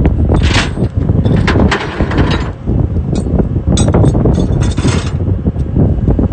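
Several bursts of metallic clanking and rattling from a tilted-back flatbed tow truck's bed and rigging, over heavy wind buffeting on the microphone.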